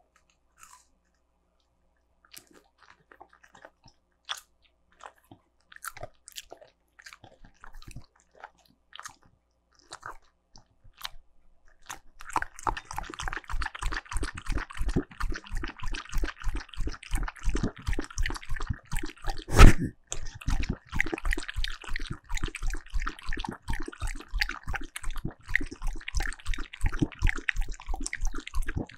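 Shiba Inu chewing a piece of chicken nugget with scattered soft crunches and clicks. About twelve seconds in, it switches to quick, evenly repeated lapping from a bowl, with one louder click partway through.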